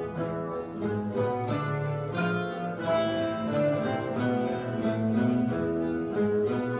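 An ensemble of ten classical guitars playing a Spanish pasodoble together, several plucked parts sounding at once with a melody over chords.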